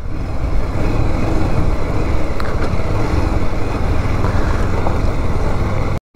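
Bajaj Pulsar 180's single-cylinder engine running steadily with road noise while the motorcycle is ridden, with a brief drop to silence near the end.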